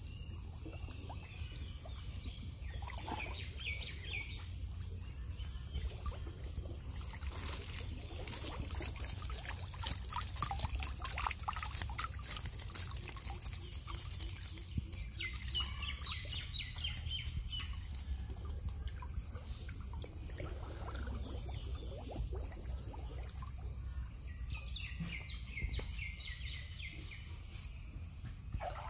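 Water splashing and running off a woven bamboo shrimp trap as it is lifted out of shallow floodwater and handled, with a dense run of small clicks and crackles partway through. Birds chirp in short bursts a few times.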